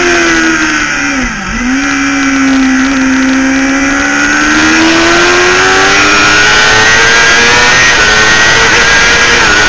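Sport motorcycle engine heard from the bike itself on a race track. The revs drop sharply about a second and a half in as the rider shuts off for a corner, then climb steadily as the bike drives out, with a brief dip near the end at an upshift. Wind rushes over the microphone throughout.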